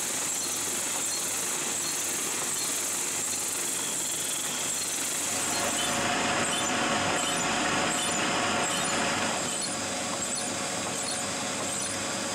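Drill press spinning a sanding drum while a windshield wiper motor, through a crank and link rod, works the feed lever so the drum moves up and down like an oscillating spindle sander. The running noise is steady, louder for a few seconds in the middle, with a regular squeak from the moving linkage.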